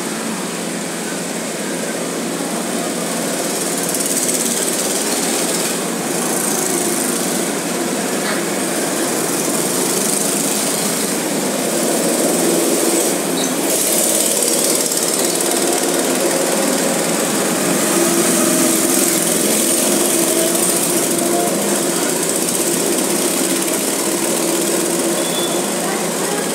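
Small go-kart engines running as karts lap a track, the engine hum growing louder about halfway through as a kart comes near.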